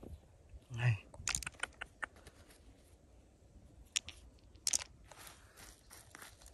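Sharp clicks of hard stones and nugget-like pieces knocking together in a hand and on gravel, a few separate taps about a second and a half in, at four seconds and just before five. A short murmured voice sound comes about a second in.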